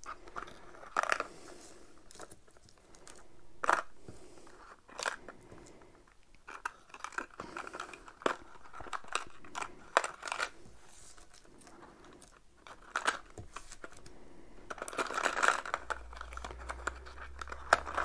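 Small cardboard and plastic packaging handled and opened by hand: irregular crinkling and rustling with scattered clicks and taps, growing busier and louder about fifteen seconds in.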